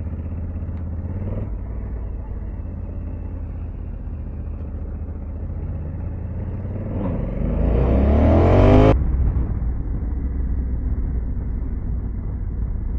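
2021 Honda Africa Twin's parallel-twin engine running steadily while riding, with wind. About seven seconds in a louder sound builds, rising in pitch, then cuts off suddenly near nine seconds.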